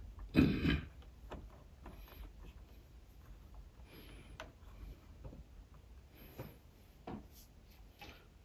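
Plastic clip-building bricks handled and pressed onto a brick-built car model: a louder clatter just after the start, then scattered small clicks and rubbing of plastic parts.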